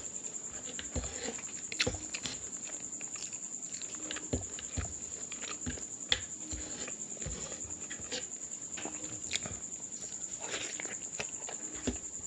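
Close-up eating sounds: chewing and lip smacking with scattered wet clicks, and fingers squishing and scooping curry-soaked cauliflower rice on a wooden board.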